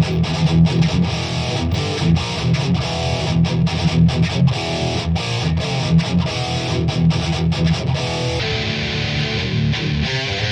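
Heavy-distortion electric guitar playing a choppy metal riff, the chords cut by many short, sharp stops. About 8 s in, the tone turns darker, with less top end.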